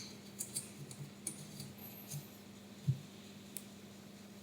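Faint, scattered clicks and light knocks of small screws and a hand tool being handled while fastening the Z-axis assembly, one knock a little louder about three seconds in, over a low steady hum.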